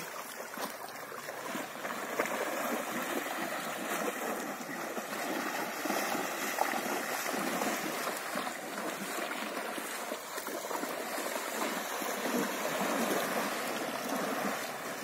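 Steady sloshing and churning of water as horses wade across a shallow river.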